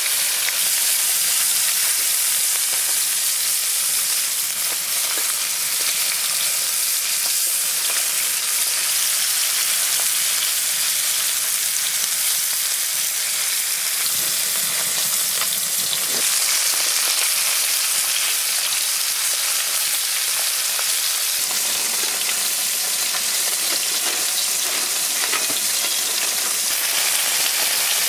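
Turmeric-coated climbing perch (koi fish) shallow-frying in mustard oil in an iron wok, with a steady, loud sizzle.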